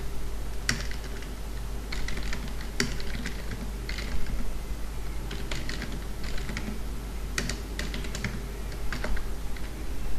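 Computer keyboard typing: irregular key clicks in short runs with brief pauses, as a command line is typed out.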